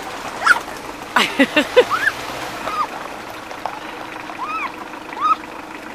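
Short high cries and a brief burst of laughter from people playing in the snow, over a steady rush of wind on the microphone.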